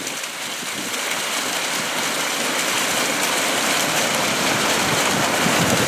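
Fountain water jets splashing back into a shallow basin: a steady rush of falling water.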